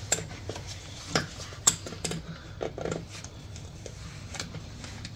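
Pliers working a small hose clamp off the coolant hose at the oil cooler: a few separate small metal clicks and taps, over a faint steady hum.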